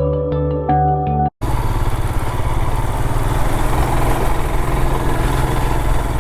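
Soft background music for about the first second, then a sudden cut to a Royal Enfield Himalayan's single-cylinder engine running steadily as the motorcycle is ridden.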